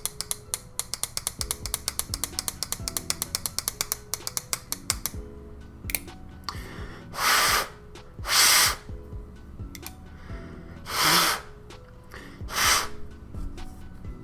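A rapid run of small metallic clicks, about eight a second, for about five seconds, as the freshly oiled balisong's handles are worked on their pivots. In the second half come four short, loud hissing bursts, the loudest sounds here.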